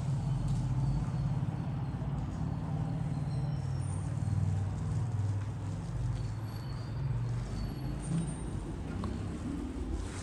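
A motor vehicle's engine running close by, a steady low rumble that eases slightly in the second half.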